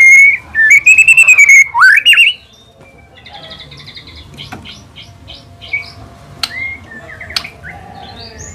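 White-rumped shama singing: a loud burst of clear whistled phrases over the first two seconds or so, ending in a steeply rising whistle, then quieter rapid chirps and clicks.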